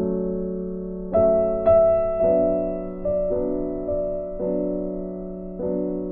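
Background piano music: a slow, gentle melody of single notes and chords, each struck and left to ring and fade, about one new note every half second to a second.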